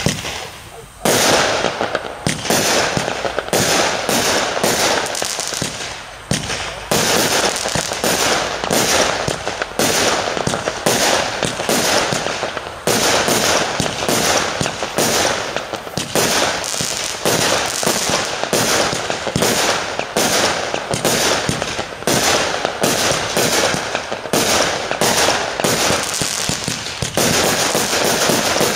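A consumer fireworks cake (battery) firing shot after shot in rapid succession, about one to two a second. Each shot launches a star burst, with a continuous noisy fizz between the shots.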